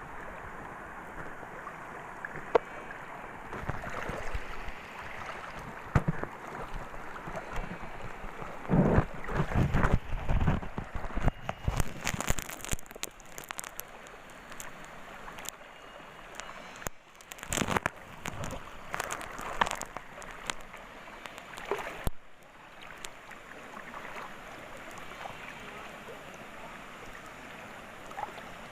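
Rushing river water, a steady hiss, with irregular louder knocks and rustles around the middle.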